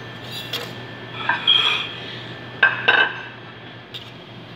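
Kitchenware being handled on a counter: a kitchen knife and dishes clicking and clattering. There are a few light clicks near the start, a ringing clink about a second and a half in, and two sharp knocks about three seconds in.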